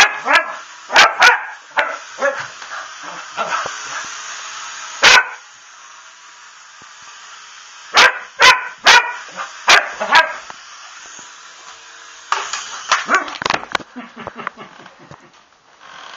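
Dog barking excitedly at an RC helicopter: loud, sharp barks in clusters, with a single bark about five seconds in, a run of five barks around eight to ten seconds, and a quick flurry after twelve seconds.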